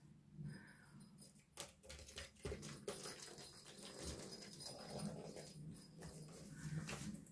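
Cat vocalizing faintly, with scattered light knocks from a small plastic toy ball and paws on a laminate floor.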